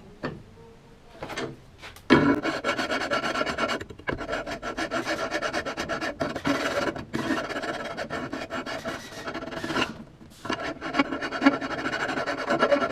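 Quick back-and-forth rasping strokes of a hand tool scraping brake parts clean. They start about two seconds in and break off briefly about ten seconds in before going on.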